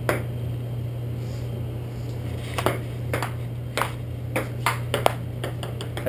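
Table tennis ball knocking on paddles and the table during a rally: one sharp knock at the start, then after a pause a quick run of about a dozen knocks from two and a half seconds in. A steady low hum runs underneath.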